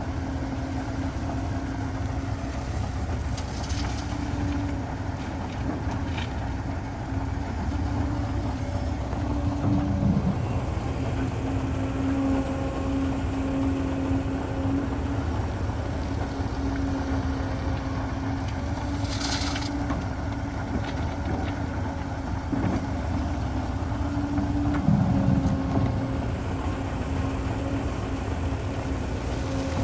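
Heavy construction machine's diesel engine running steadily with a continuous low drone, its note shifting briefly about 10 and 25 seconds in.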